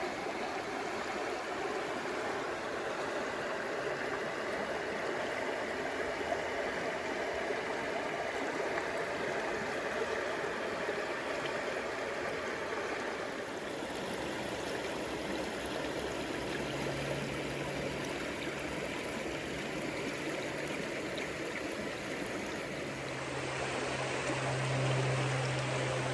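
Water in a stream running steadily. About two-thirds of the way through, a low held music note fades in under it and grows louder near the end.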